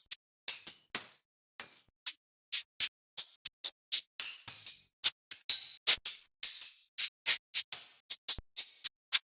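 Synthwave drum-kit one-shot samples played one after another: short, bright percussion hits with most of their sound in the highs, like hi-hats, shakers and tambourines. They come at an uneven two to three a second, with silence between them.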